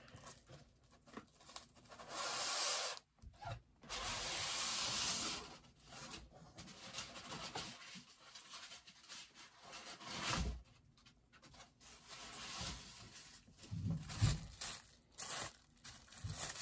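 Packaging being torn open and rustled by hand as a bobblehead is unboxed: two longer tearing rasps in the first few seconds, then scattered rustling and a few dull knocks of the box.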